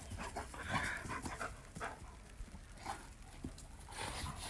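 Dogs panting as they play together, with short irregular breaths and snuffles.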